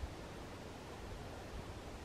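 Faint, steady background hiss with no distinct sound in it.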